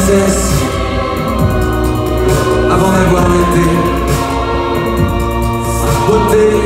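Live band music: a keyboard with sustained sung vocals into a microphone, heard through the hall's PA.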